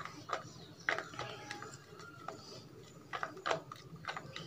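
Plastic spoon stirring dish wash gel compound and water in a plastic cup, with irregular clicks and scrapes of the spoon against the cup's sides; the louder knocks come about a second in and again after three seconds.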